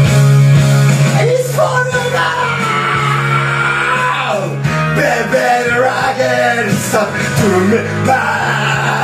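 A man singing into a karaoke microphone over a rock backing track; his voice comes in about a second and a half in, over the steady music.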